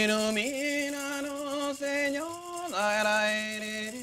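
A voice singing a slow chant in long held notes, stepping up in pitch about half a second in and again around two seconds, dropping back low shortly after and rising again at the end.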